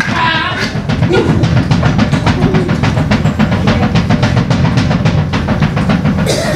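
Fast, even drumming on a drum kit, many strokes a second in a steady roll, with a voice calling out briefly at the start.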